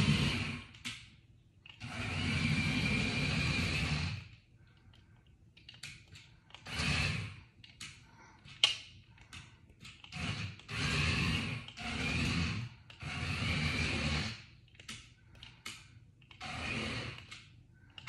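Small electric motor of a remote-control toy car whirring in stop-start bursts of one to two seconds as it is driven across the floor. A sharp click about halfway through.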